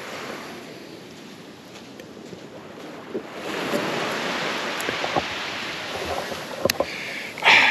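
Small waves breaking and washing up on a sandy beach, the wash swelling about three seconds in, with some wind on the microphone.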